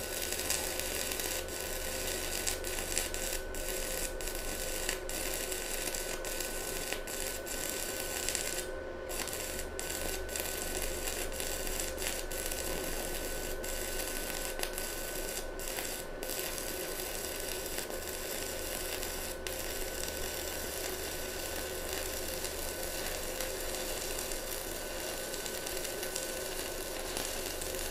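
Stick-welding arc from a Nanya mini inverter welder burning a 2.5 mm electrode into steel plate: a steady hiss, with brief dips about nine and sixteen seconds in. The arc is holding and burning strongly.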